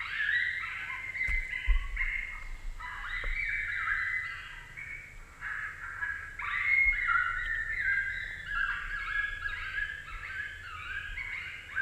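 FoxPro CS24C electronic predator caller playing a coyote pup distress recording through its speaker: a rapid, unbroken string of high-pitched yelps and squeals that comes on abruptly.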